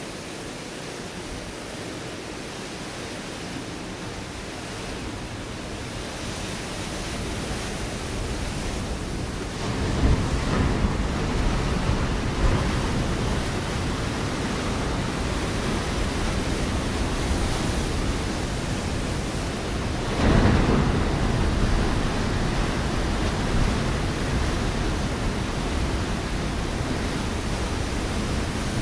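Ocean waves breaking against a rocky shore: a steady wash of surf that swells over the first ten seconds, with two heavier waves crashing about ten seconds apart, the second near the two-thirds mark.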